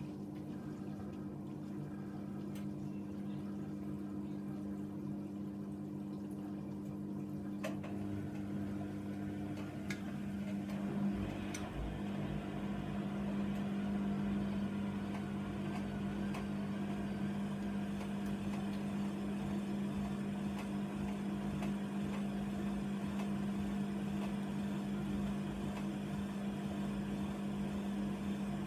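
Hoover Nextra washer dryer running its wash: a steady motor hum with water in the drum. About eleven seconds in the hum changes pitch and gets a little louder and fuller.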